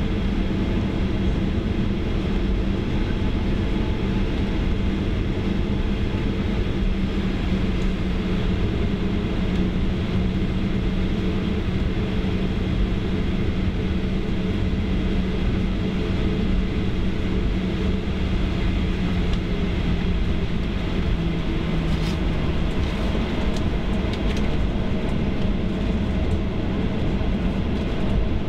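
Cabin noise of a Boeing 737-800 taxiing: the steady hum of its CFM56 engines and the rumble of the rolling airliner, with a low drone that drops slightly in pitch about two-thirds of the way through. A few faint clicks come near the end.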